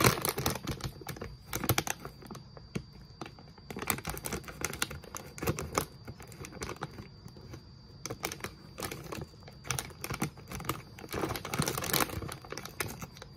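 Thin plastic snack bag crinkling and crackling in a run of small, uneven clicks as it is handled and worked open at the top.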